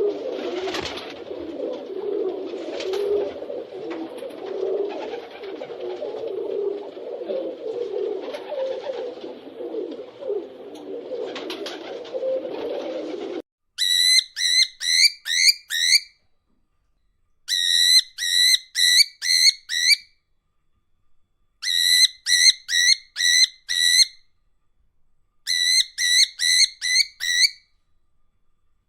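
Pigeons cooing together in a steady, overlapping murmur. About halfway through, this cuts to a different call: clear whistled notes repeated in quick runs of five or six, with short pauses between runs.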